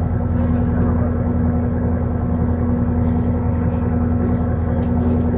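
A boat engine running steadily: a constant low drone with a steady hum over it, neither rising nor falling.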